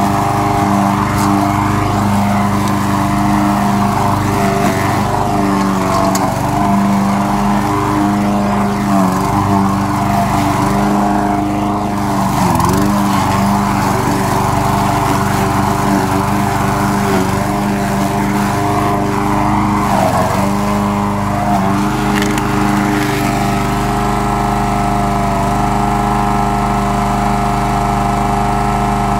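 A Troy-Bilt push mower's small single-cylinder engine runs steadily while cutting grass. Its pitch sags briefly twice, about twelve and twenty seconds in, as it takes load, then runs more evenly near the end.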